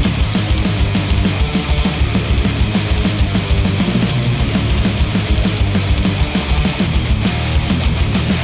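Instrumental heavy rock music with distorted guitar over a fast, steady drum beat, played back through HIFIMAN headphones and picked up by microphones.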